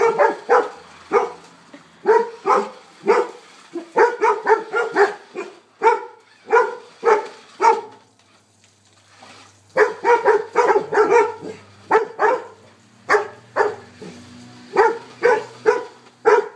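A retriever barking again and again at a remote-control toy car, in quick runs of short barks, with a pause of about two seconds midway.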